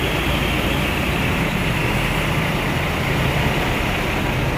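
A large diesel coach bus engine running close by: a steady, even engine noise with a low hum, without breaks or sudden events.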